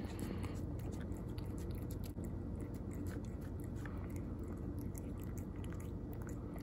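A cat chewing and lapping wet chunky tuna cat food from a paper bowl, with many small wet smacks and clicks of its mouth. A steady low hum runs underneath.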